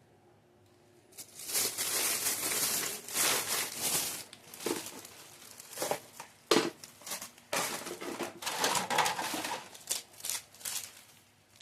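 Thin plastic packaging crinkling and rustling as it is handled, in irregular bursts with a few sharp crackles, starting about a second in.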